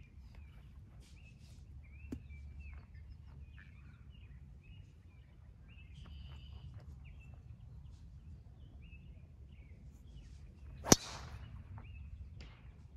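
A golf club striking a ball once, sharp and loud, about eleven seconds in, with birds chirping throughout and a faint click about two seconds in.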